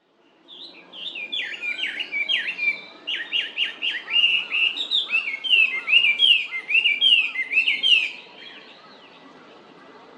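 Chinese hwamei (Garrulax canorus) singing a loud, rich song of varied slurred whistles, with notes repeated in quick runs. The song stops about eight seconds in.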